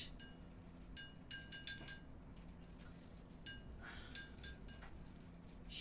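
Small metal bell ornaments ringing as they are shaken and handled: a quick cluster of bright strikes in the first two seconds, then a few more about three and a half to four and a half seconds in.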